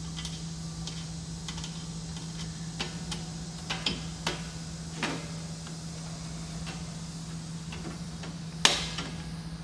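Irregular small clicks and ticks of a handheld screwdriver turning a screw into the thin sheet-metal bracket of a tankless water heater, with one sharper click near the end. A steady low hum runs underneath.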